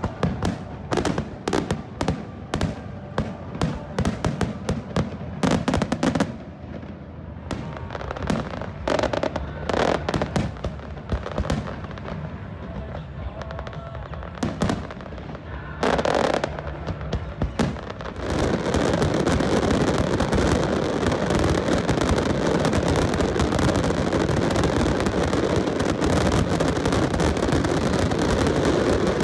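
Aerial firework shells bursting: a quick, irregular run of sharp bangs and crackles. Past the middle it thickens into a loud, unbroken barrage of bursts that runs on.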